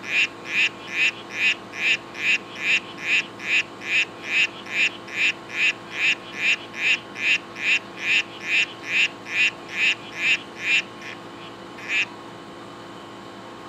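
Male harlequin poison dart frog (Oophaga histrionica, Bahia Solano) calling in courtship: a fast, even series of short chirps, about two and a half a second. The series stops about eleven seconds in, with one last chirp a second later.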